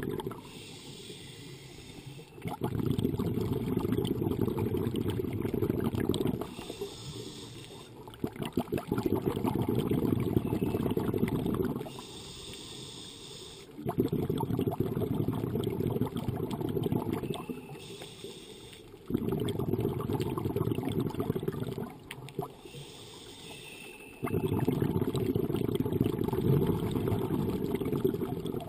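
Scuba diver breathing through a regulator underwater, heard from the diver's own camera. Each breath is a quieter hissing inhale followed by a louder, low bubbling rush of exhaled air, repeating about every five to six seconds, five times.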